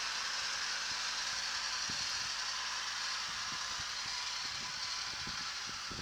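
Loose alternator drive belt on a Kubota SL28H tractor's diesel engine squealing, a steady high-pitched screech that eases slightly toward the end: the belt tension has slackened.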